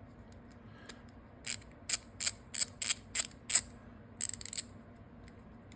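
A 36-tooth 1/4-inch ratchet wrench being worked by hand, its pawl clicking over the ratchet wheel. There is a row of separate clicks about three a second, starting about a second and a half in, then a quick run of clicks a little later.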